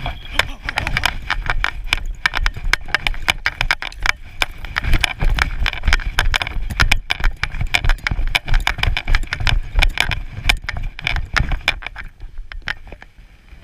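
Rapid, irregular footsteps crunching through snow, with heavy thumps and jostling of a body-worn camera as the wearer runs.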